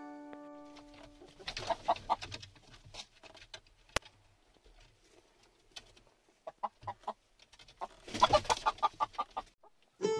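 Domestic hens clucking in runs of short, rapid clucks, the loudest run near the end. There is a single sharp click about four seconds in.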